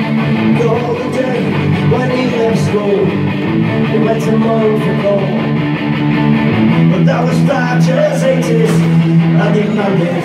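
Folk-punk band playing live, loud: strummed guitar over the full band, with wavering melodic lines above it.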